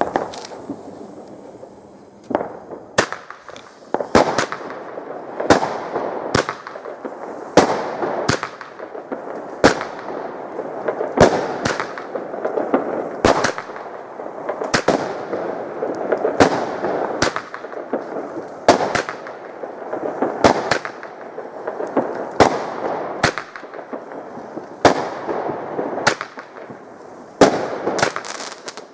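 Nico Feuerwerk 'Mephistos Fire' 16-shot, 18 mm calibre firework battery firing shot after shot, starting about two and a half seconds in: sharp bangs, often in close pairs of launch and burst, every half second to a second, with a rushing crackle between them.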